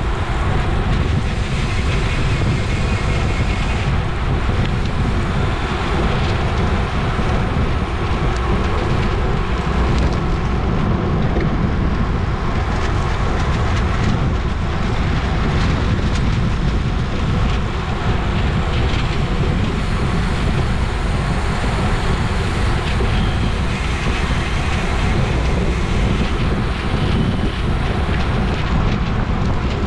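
Wind rushing over the microphone of a camera carried on a racing bicycle at speed: a loud, steady, deep rushing noise with no pauses.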